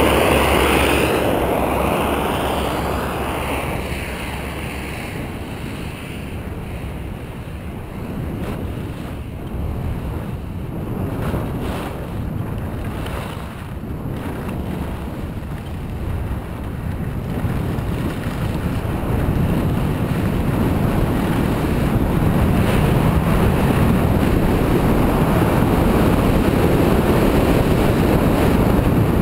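Wind rushing over the microphone of a skier's camera, with the hiss of skis sliding over groomed snow during a downhill run. The rush is loud at first, eases off through the middle, then builds again from about two-thirds of the way in.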